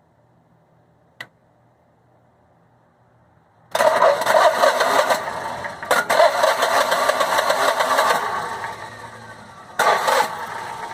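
A click, then a Generac Guardian Quiet standby generator's engine is cranked but does not start. The noise comes in suddenly about four seconds in, cuts out for a moment near six seconds, and dies away after eight. A short burst of cranking follows near the end. The unevenness was put down by an engine tech to low oil tripping the low oil pressure switch on and off.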